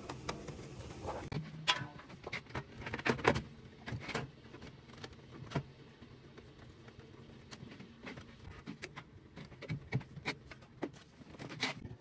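Scattered clicks and knocks of hands working on the boiler's pipe fittings and casing, irregular and a few seconds apart, over a faint low hum in the first half.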